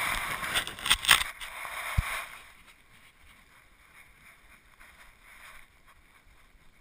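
Knocks and a rustling hiss from a GoPro strapped to a moving dog, its body and fur rubbing against the camera, with a few sharp knocks in the first two seconds. After that it falls almost quiet.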